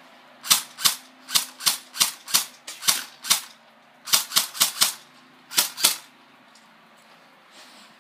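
Airsoft gun firing single shots at a steady pace, about fifteen sharp pops in three strings: nine, then four, then two.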